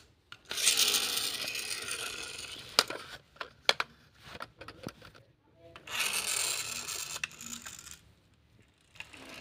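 Toy fire truck's pull-back motor whirring twice, each run fading over a second or two, with a few sharp plastic clicks and knocks between.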